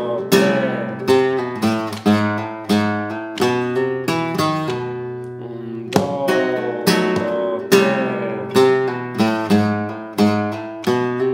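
Flamenco guitar playing a bulerías remate, a closing phrase of single plucked notes with slurs on the low fifth and sixth strings. The phrase seems to start over about six seconds in.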